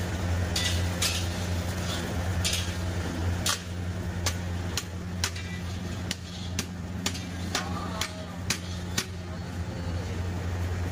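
Metal ladle clinking and knocking against a large aluminium cooking pot, a dozen or so sharp clinks at uneven intervals, over a steady low hum.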